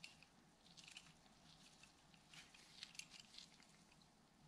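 Near silence with faint, scattered small clicks and scrapes: a hex Allen key and small regulator parts handled in gloved hands while the adjustment orifice is unscrewed from the second stage's air barrel.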